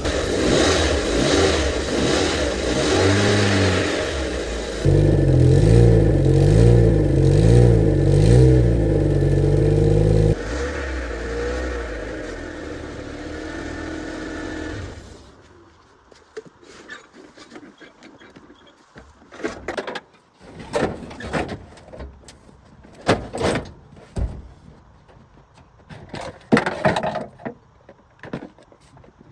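Car engine running and revved up and down several times, then switched off about halfway through. After that come scattered short knocks and clatter.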